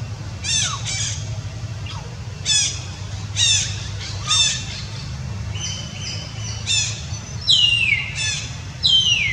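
Young macaque giving repeated shrill squeals, about one a second, several sliding down in pitch and the loudest ones near the end, over a steady low rumble.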